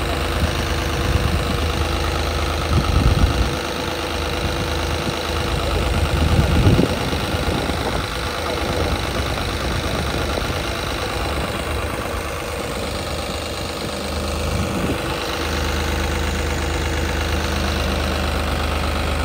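New Holland 3630 tractor's diesel engine running steadily, with two brief swells in loudness about three and seven seconds in.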